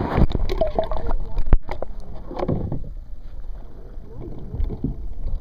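A camera microphone plunged under lake water: a sudden rush as it goes in, then muffled sloshing, low rumbling and scattered knocks from the water moving around the submerged housing.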